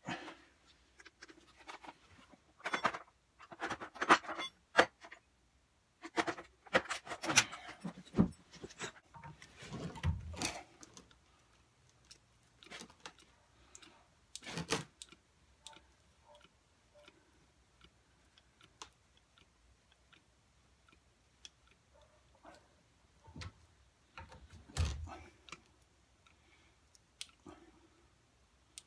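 Metal hand tools clinking, knocking and scraping against the van's steel front suspension parts in irregular clicks and knocks, busiest in the first ten seconds and sparser after.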